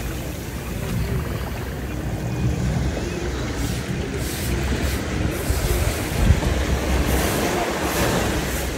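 Surf washing up a sandy beach, with a steady low rumble of wind on the microphone.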